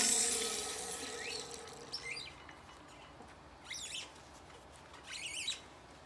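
A sharp metallic bang from a hand-worked hydraulic bottle-jack press, ringing for about two seconds. A few short high squeaks follow.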